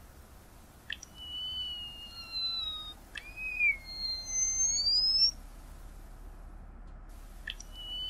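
Tricoloured munia song: a few sharp clicks, each followed by long, thin whistles held together in two or three pitches. The earlier whistles fall slowly, the later ones rise, and the phrase breaks off about five seconds in. The same click-and-whistle phrase begins again near the end.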